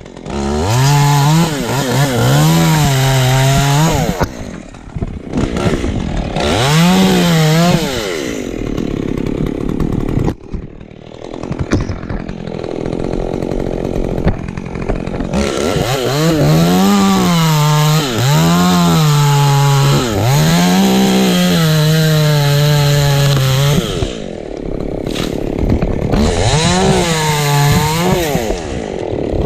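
Two-stroke chainsaw cutting wood, revving up and down repeatedly as the chain bites, with a quieter lull partway through and a long steady full-throttle stretch near the end.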